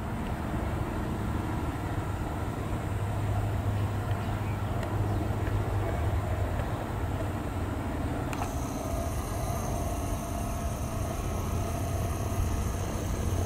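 Cars and trucks driving on a nearby road: a steady low traffic rumble. After about eight seconds a thin steady whine joins it.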